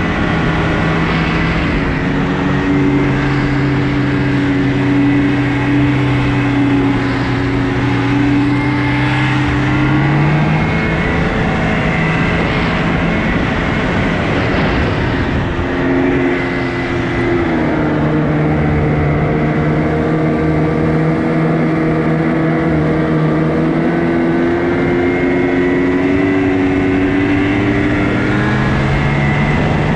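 Snowmobile engine running under way, its pitch stepping up about a third of the way in, dropping back a little past halfway and rising again near the end as the throttle changes, over a steady rushing noise of the machine moving over the snow.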